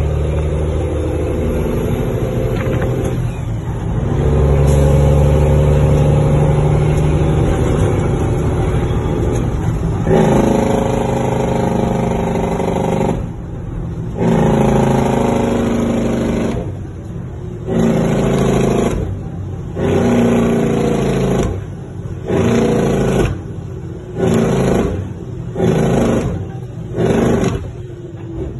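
Cummins N14 inline-six diesel truck engine heard from inside the cab, pulling steadily at first. From about halfway through it is revved and let off over and over in short bursts of about a second, coming closer together near the end.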